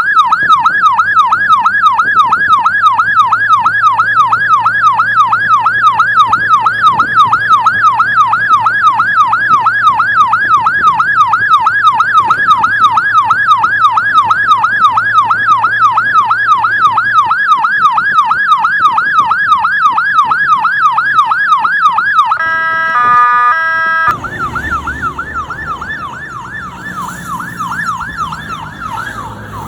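Electronic emergency-vehicle siren in a rapid yelp, sweeping up and down over and over. About 22 seconds in it switches briefly to a stepped pattern of changing tones, then the yelp returns, quieter, over low road and engine rumble.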